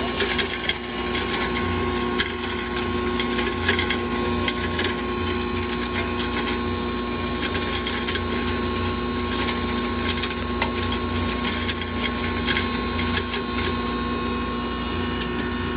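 Singhara (water chestnut) grinding machine running: a steady motor hum and whine under a dense, irregular rattling of clicks.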